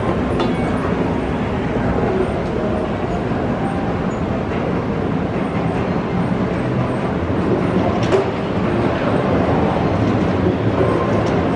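Steady rumbling ambience of a busy airport pedestrian tunnel, with moving-walkway machinery and travellers' rolling suitcases, and a single sharp knock about eight seconds in.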